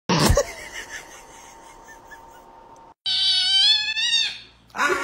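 A kitten gives one long, high, wavering meow that falls in pitch as it ends. It comes about three seconds in, after a short loud noise at the very start.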